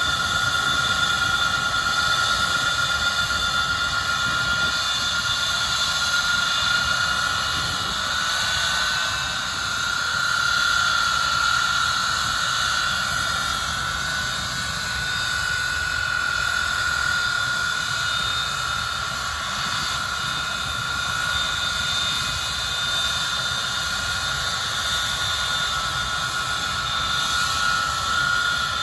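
Avro Vulcan XM655's Rolls-Royce Olympus 301 turbojets running on the ground: a steady, loud roar with a high whine on top, the whine rising a little about nine seconds in and easing back.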